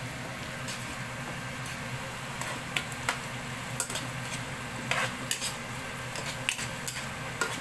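A spatula stirring chicken pieces in sauce in a hot non-stick pan, over a steady low sizzle. The spatula scrapes and taps against the pan a dozen or so times at irregular intervals.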